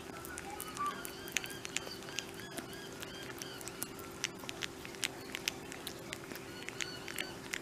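A flying fox lapping and chewing banana, making irregular wet mouth clicks and smacks, several a second. Faint high chirps and a steady low hum run in the background.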